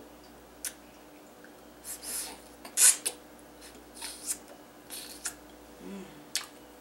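Close-up mouth sounds of brushing and tasting toothpaste: toothbrush bristles scrubbing at the teeth and lips and wet smacks, in short separate crisp strokes with a couple of sharp clicks.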